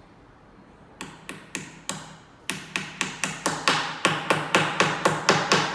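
A small nail being hammered into a badminton racket's handle: a run of sharp taps that starts about a second in, then speeds up to about four a second and grows louder.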